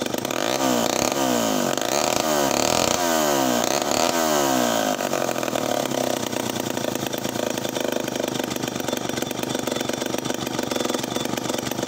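Homelite 500 vintage two-stroke chainsaw running, its throttle blipped about four times in the first five seconds with the engine speed falling back after each, then settling to a steady idle.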